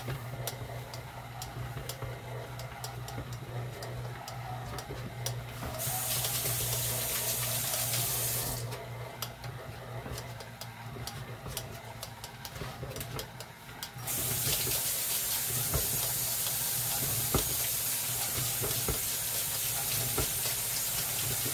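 KitchenAid tilt-head stand mixer running, its beater working a stiff sausage, cheese and baking-mix dough in a glass bowl: a steady motor hum with regular light ticking. About six seconds in, and again from about fourteen seconds on, a louder steady hiss joins it.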